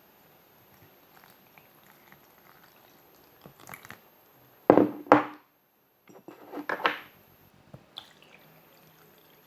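Water poured from a glass into a mixing bowl of flour, splashing in a few short bursts, the loudest about halfway through.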